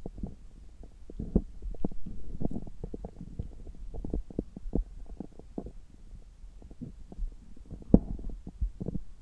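Stomach and bowel sounds heard through a stethoscope pressed on the belly: irregular low gurgles and short pops, with one sharper pop about eight seconds in. They are the sounds of a gut digesting a few hours after a meal.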